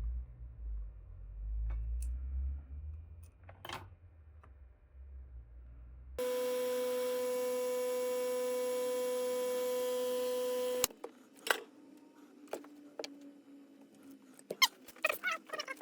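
A multimeter's continuity buzzer sounding one steady tone for about four and a half seconds, starting about six seconds in and cutting off suddenly. Before it come low handling rumbles and a few light knocks; after it, scattered light clicks.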